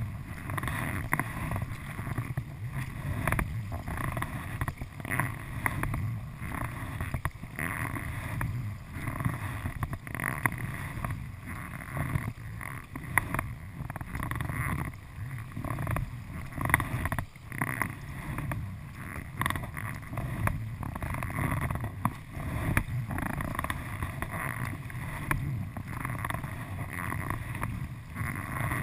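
Kayak paddle blades dipping and pulling through calm river water, with water splashing and lapping against the hull of an Immersion Research whitewater kayak. The strokes swell and fade about once a second.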